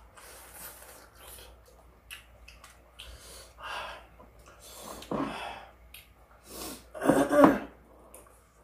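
Close-miked eating sounds: a person eating with breathy sniffs and slurps in about three short bursts, the last and loudest near the end.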